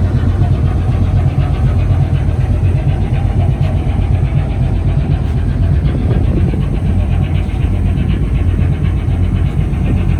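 Large marine diesel main engine of a coastal tanker running steadily and loudly: a deep, even drone with a fast, regular clatter over it.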